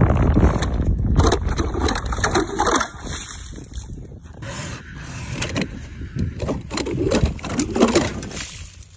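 Hand-cranked ice auger boring through lake ice: a rough, irregular crunching and scraping as the blades shave the ice. It is loudest in the first few seconds, eases off in the middle, and builds again near the end.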